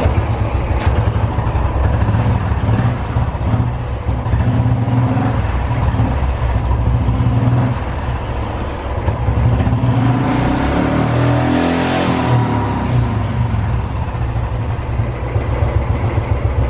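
Royal Enfield Bullet's single-cylinder engine catching on a kick-start at the beginning, then running with a rough, 'dirty' sound, revved up and back down once about ten seconds in. The engine is worn and smoking from the silencer.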